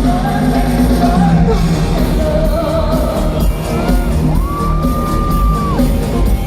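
Live pop music: a band playing with a singer, with one long, steady high note held for about a second and a half just past the middle.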